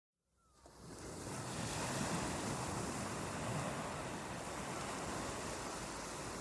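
Ocean surf washing onto a beach, fading in from silence over about the first second and then running as a steady, even wash of waves.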